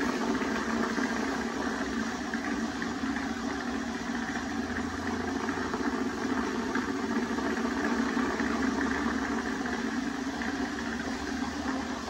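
Cadence electric desk fan running steadily with a non-original propeller fitted: an even whir of air over a low motor hum.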